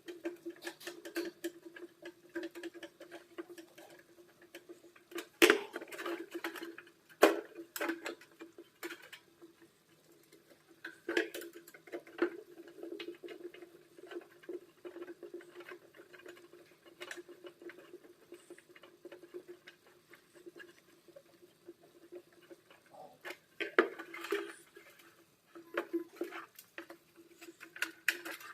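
Small irregular clicks, taps and scrapes of an electric room heater's plastic and metal parts being handled, with a few louder knocks about five, seven, eleven and twenty-four seconds in. A faint steady hum runs underneath.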